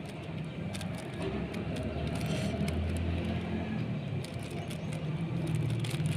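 A low engine rumble, like a motor vehicle nearby, swelling about two to three seconds in and then easing.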